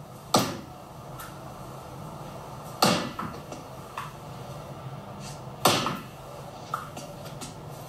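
Three loud knocks on a door, roughly two and a half to three seconds apart, each ringing briefly, with a couple of faint clicks between them over a low room hum.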